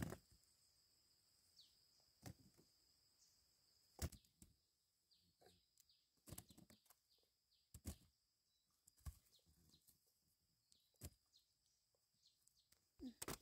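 Faint rural ambience: a steady high-pitched insect drone, many short falling bird chirps, and a sharp knock every second or two, loudest about four and eight seconds in.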